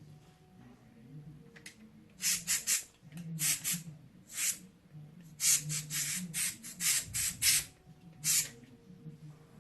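Short hissing strokes in quick runs of two to six, from cleaning the dirty parts of a computer case fan.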